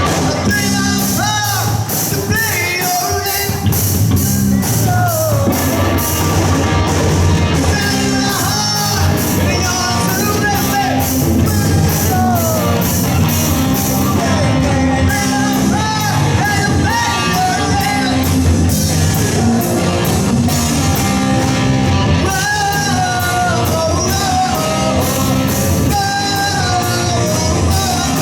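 Live rock band playing a cover with drums, bass, electric guitar and singing, loud and continuous, with a steady beat.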